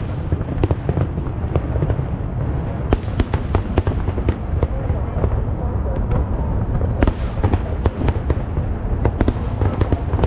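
Aerial fireworks bursting continuously: a steady deep rumble of booms with many sharp cracks and crackles on top, thickest about three and seven seconds in.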